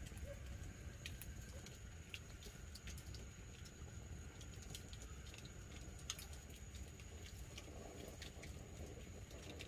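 Wood campfire crackling faintly: scattered small pops and snaps at irregular intervals over a low steady rumble.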